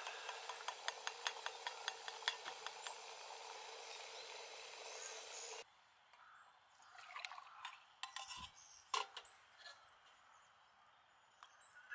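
Camping gas stove burner hissing steadily under a pot, with a quick run of light ticks, about five a second, over the first few seconds. About halfway through the hiss stops abruptly, and a few light clinks and knocks of metal camping cups and utensils follow.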